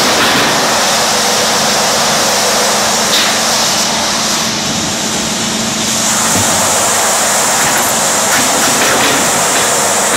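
Industrial panel sanding machine running: a loud, steady rushing noise with a steady low hum underneath.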